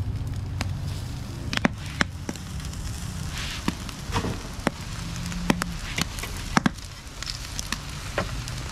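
Charcoal grill fire crackling, with irregular sharp pops about once or twice a second over a steady low hum.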